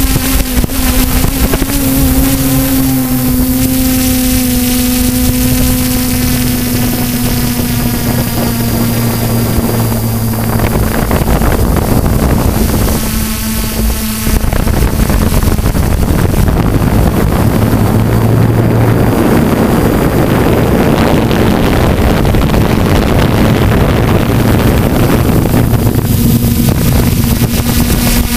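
Multirotor drone's motors and propellers humming steadily at one pitch, heard through its onboard camera with wind rushing over the microphone. The hum drops out briefly about halfway through, then returns fainter under louder wind noise.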